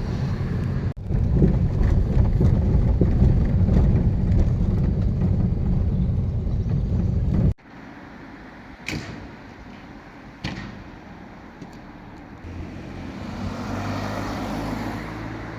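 Outdoor background noise picked up by a phone's microphone. A loud, low rumble stops abruptly about seven and a half seconds in. Quieter ambience follows, with two sharp clicks and then a low steady hum.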